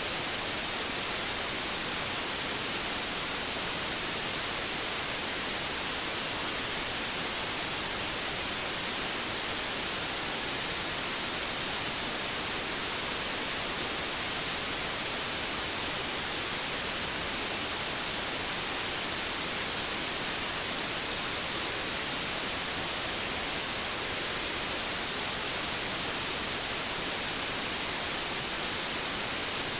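Steady white noise: an even hiss, strongest in the high frequencies, with no change in level or character.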